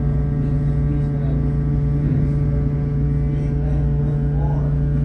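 Ship's machinery running with a steady low hum, several steady tones stacked above it, heard aboard the vessel. A voice briefly calls out near the end.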